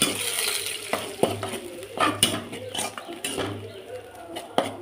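A spatula scraping and knocking against an iron kadai as frying eggs are broken into large pieces, with the oil sizzling under it and fading.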